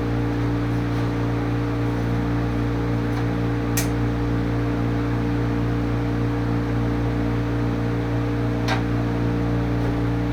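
Steady machine hum made of several fixed tones, unchanging throughout, with two faint sharp clicks, one about four seconds in and another near nine seconds.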